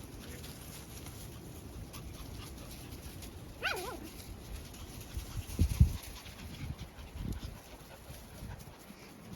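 Collie puppies panting, with one puppy giving a short, wavering whine a little under four seconds in. A few low thumps follow around six to seven seconds, the loudest near six.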